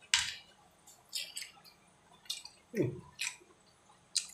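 A person eating with their mouth close to the microphone: wet lip smacks and chewing clicks, about half a dozen sharp smacks, the loudest one just after the start, with a short low vocal sound near three seconds in.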